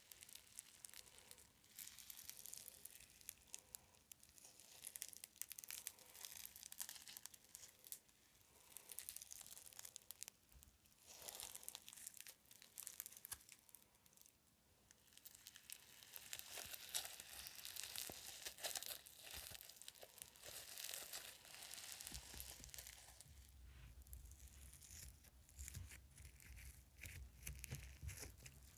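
Crumbly slime foam being squished and pulled between fingers, giving a dense, fine crackling with short lulls. A low rumble joins in about two-thirds of the way through.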